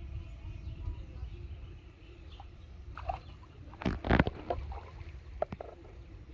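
Hooked carp splashing at the water's surface as it is drawn in on the line, with a short burst of loud splashes about four seconds in and a few smaller splashes after, over a steady low rumble.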